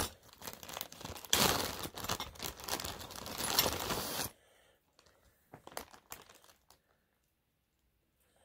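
Clear plastic zip-top bag crinkling loudly as a guitar bridge is worked out of it, stopping after about four seconds; a few light clicks follow, then near silence.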